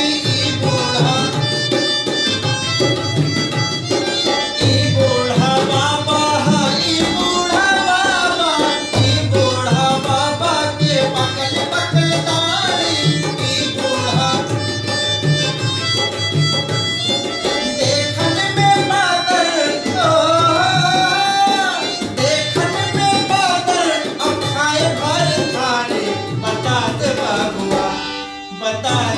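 Awadhi folk song: a man singing over harmonium and a dholak drum beating a steady rhythm. The music drops away briefly near the end.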